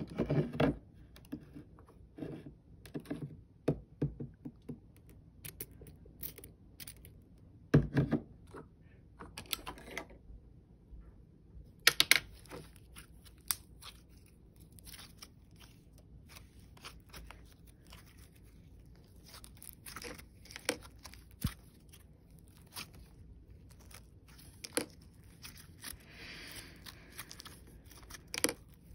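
Glossy slime being squished and pressed by hand: irregular small clicks, pops and crackles, with a few louder pops near the start and about eight and twelve seconds in.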